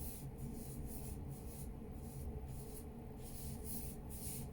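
A paintbrush stroking and dabbing paint, a run of short, soft scratchy brushes about two or three a second, over a low steady hum.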